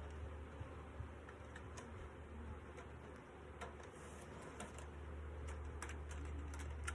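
Honeybees buzzing around a freshly filled log hive, over a steady low hum, with scattered light ticks and clicks.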